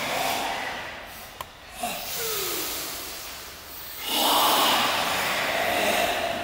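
A group of Goju-ryu karateka breathing forcefully together while performing kata: long, noisy forced exhalations. One fades over the first second, and a louder one starts about four seconds in and lasts about two seconds.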